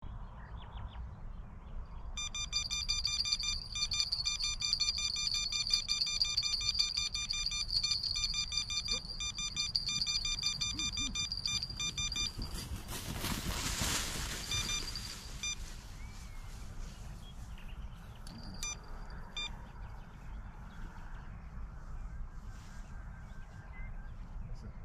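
Electronic bite alarm on a catfish rod beeping in a rapid, unbroken run for about ten seconds, then in a few shorter bursts: a catfish bite pulling line through the alarm. A short burst of rustling noise comes just after the long run, over a steady low wind rumble.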